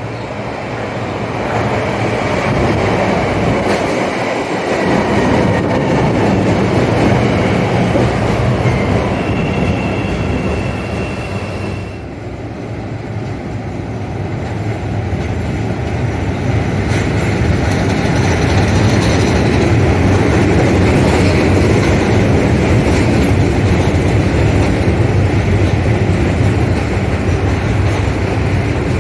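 Chicago 'L' rapid-transit trains pulling into elevated stations: the steady rumble of steel wheels on the rails grows as the first train approaches, with a thin high wheel squeal shortly before an abrupt cut about twelve seconds in. After the cut, a second train rumbles in and rolls past along the platform.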